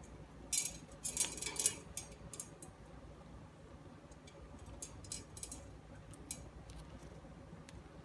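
Two yellow-crowned amazon parrots' beaks biting and crunching on a small green chew-toy block they are fighting over: a quick cluster of crisp clicks about half a second to two seconds in, then scattered single clicks.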